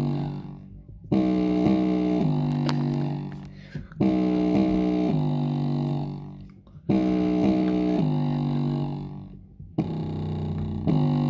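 Bass-heavy music loop played through a broken knockoff JBL Charge 4 Bluetooth speaker. A short phrase of a few notes steps down in pitch, fades out, and starts again about every three seconds.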